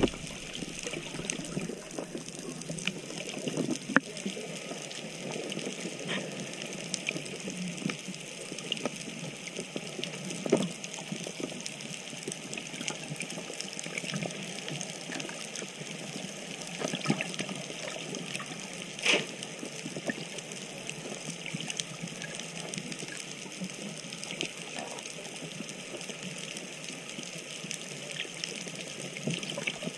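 Underwater ambience heard through a GoPro's waterproof housing: a steady watery hiss with scattered faint clicks and a few louder knocks, the loudest about 19 seconds in.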